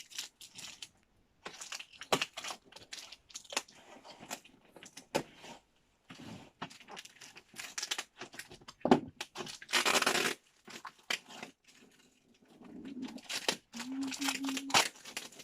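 Plastic packaging being unwrapped by hand: irregular crinkling and rustling with small clicks, and a louder tearing sound lasting about a second, about ten seconds in.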